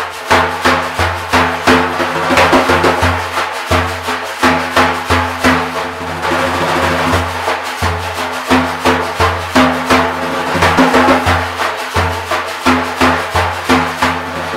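Daf, a large Kurdish frame drum, played solo with the hands: fast, dense rhythms mixing deep resonant bass strokes with sharp higher strokes, over the steady shimmer of the metal rings inside its frame.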